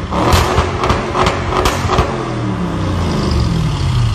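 Audi RS6's twin-turbo V8 through a Milltek exhaust in dynamic mode, revved while parked: quick throttle blips with several sharp cracks in the first two seconds, then the revs falling steadily back toward idle.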